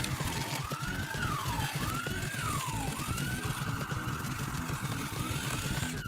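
Electronic siren wailing, a tone that rises and falls about once a second, holding steady for a second or so midway before the sweeps resume, over a low choppy rumble.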